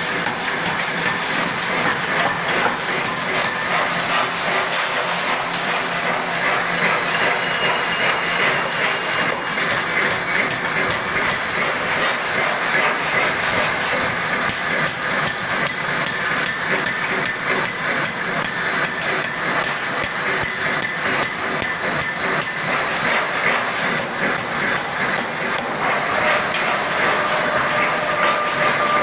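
Pneumatic forging air hammer running and striking a red-hot flange blank, a steady loud machine noise full of quick repeated knocks.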